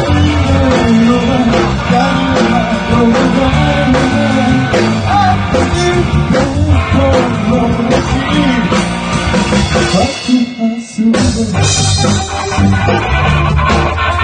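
Live rock band playing: electric guitars, bass and drum kit, with a man singing lead. The bass and drums drop out for about a second around ten seconds in, then the full band comes back in.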